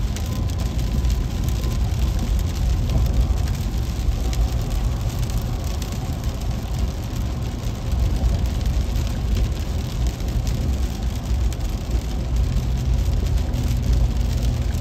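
Heavy rain pattering on a car's windshield and roof, heard from inside the cabin over the steady low rumble of the car driving on a wet freeway.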